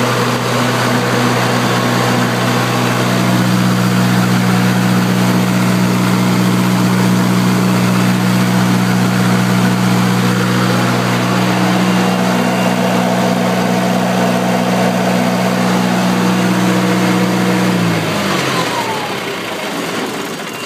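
John Deere diesel engine of a Kohler standby generator running at steady speed, then shut off about 18 seconds in, its note falling as it winds down to a stop.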